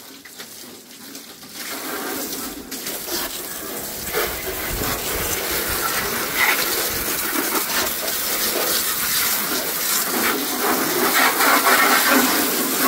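Water from a plain garden hose spraying and splashing over a car's engine bay, rinsing off foam degreaser. It starts faint and builds within the first couple of seconds into a steady spray.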